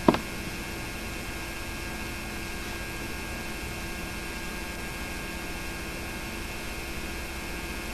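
Steady electrical hum and hiss from the narration recording of a silent home movie transferred to VHS, with a brief click just after the start.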